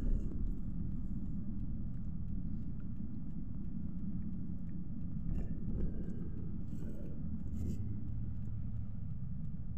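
Steady low rumble of a car driving, heard from inside the cabin: engine and road noise. A few faint short sounds come in about halfway through.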